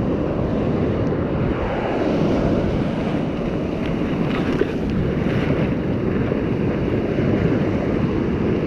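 Sea surf breaking and washing up a sand beach, with wind rushing over the microphone: a steady rush of noise without a break.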